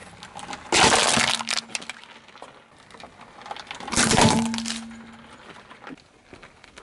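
A car tyre crushing a Coca-Cola aluminium drink can, a loud crunch about a second in, then crushing a green and orange plastic toy, a second loud crack about four seconds in.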